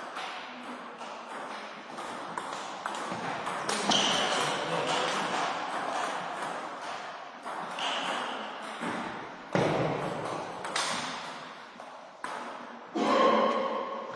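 Table tennis rallies: a plastic ball clicking off rubber-faced paddles and bouncing on the table in quick exchanges, echoing in a sports hall.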